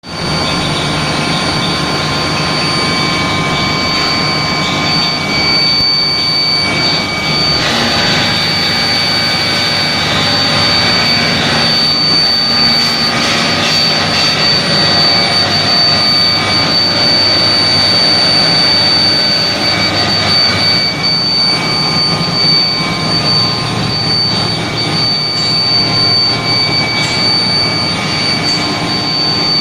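Steel plate induction hardening machine running: a steady high-pitched whine over a continuous broad roar.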